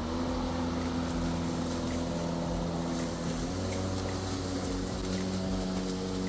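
DEWALT 20V MAX brushless cordless lawn mower running, its electric motor and blade giving a steady hum that shifts slightly in pitch twice, about three and a half and five seconds in.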